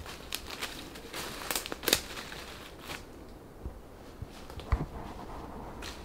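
Footsteps crunching through dry leaf litter and twigs on a forest floor: irregular crackles, busy for the first three seconds and sparser after, with a sharper snap about two seconds in and another near five seconds.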